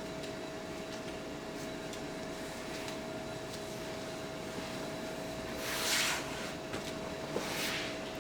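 Steady mechanical background hum with a constant tone, and two short hissing swells, the louder about six seconds in and a second one about a second and a half later.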